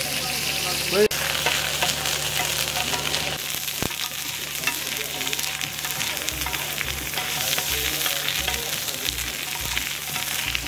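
Tawa mutton pieces sizzling steadily in desi ghee on a large flat iron tawa, with a metal spatula clicking and scraping against the iron as they are turned.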